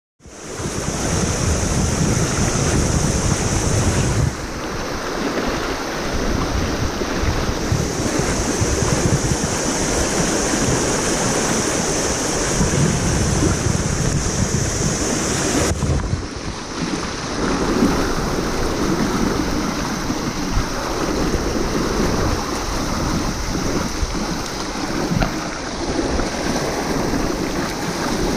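Fast river rapids rushing close to the microphone, with wind buffeting the microphone. The hiss of the water shifts abruptly twice, about four and sixteen seconds in.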